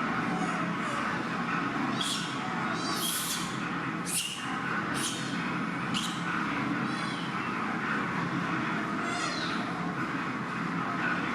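Baby monkey crying: a string of about seven short, high-pitched squealing cries, some falling in pitch, over a steady background hum.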